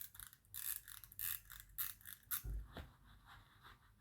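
Small sharp metal clicks and ticks from hands and tools working on a pocket watch movement, coming irregularly for about two and a half seconds, then a soft thump.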